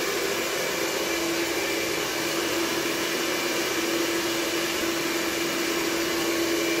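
Handheld hair dryer running steadily, blowing air across wet epoxy resin to push it into wave patterns, a continuous blowing rush with a steady low hum under it.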